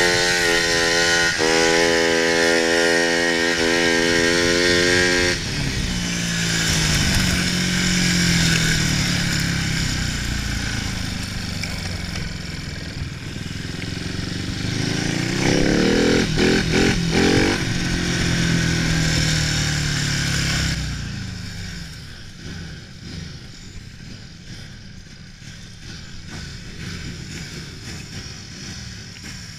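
Speedway bike's single-cylinder engine running hard on the track: a steady high-revving note for the first five seconds, then the pitch drops as the throttle is eased, climbs again around fifteen seconds, and falls away about twenty-one seconds in, staying much quieter after that.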